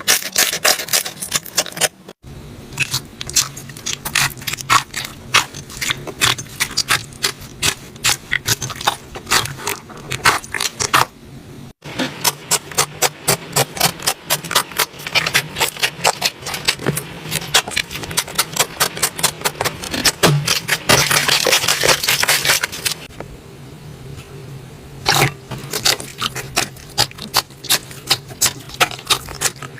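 Slime being squeezed and poked by hand, giving rapid sticky clicks and pops, thickening into a dense crackle for a few seconds past the middle. It breaks off sharply twice between clips.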